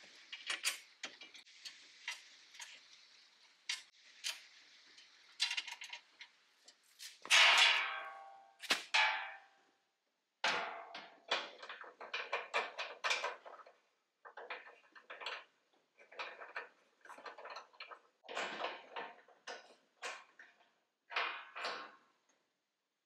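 Irregular bursts of light metal clicks, clinks and rattles as a bumper bar and a perforated metal skid grille are handled, positioned and fastened by hand. The loudest clatter comes about seven seconds in.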